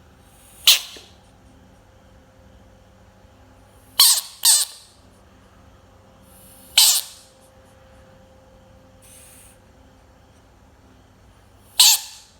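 A frog giving short, loud squawking calls, five in all, with the second and third close together.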